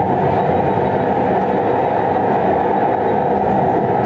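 Steady, dense machinery rumble of a sand-carrying ship at work, loading or discharging sand and gravel for land reclamation.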